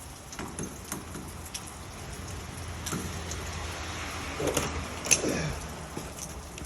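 Scattered light clicks and knocks from handling a storm door and its metal frame parts, with one sharper click about five seconds in.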